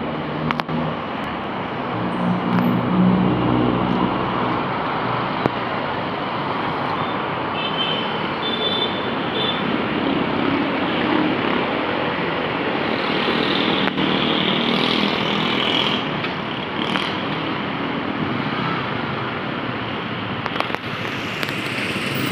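Street traffic: a steady wash of passing cars and motorcycles, with engine hum swelling twice as vehicles go by.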